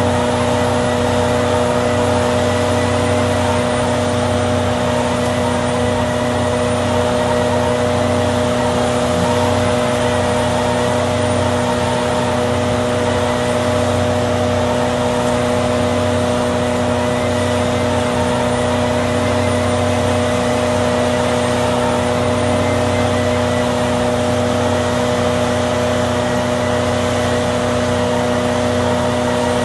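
Arjes VZ 950 Titan twin-shaft shredder running at a steady pitch: a loud, constant drone made of several even hums over a dense noise, with no knocks or changes.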